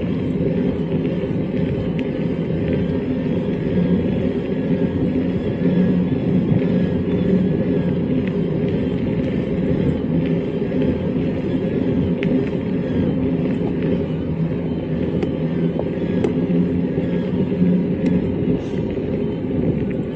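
Steady rumble of riding an e-mountain bike: wind buffeting the microphone and tyres rolling over the track, with no clear breaks.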